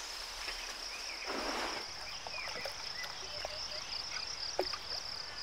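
Steady, high insect chorus with a fine pulsing trill, like crickets or cicadas in tropical forest. A short rushing hiss about a second and a half in, and scattered faint short chirps.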